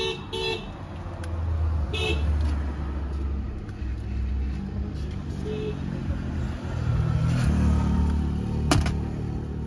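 Road traffic passing: a low engine rumble that swells and fades twice, with two quick vehicle horn toots at the start, another about two seconds in and a short one near six seconds. A sharp click near the end.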